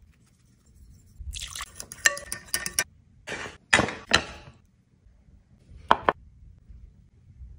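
Sauce squirted from plastic squeeze bottles in several wet, sputtering spurts, followed about six seconds in by a couple of sharp clinks as dishes are set down.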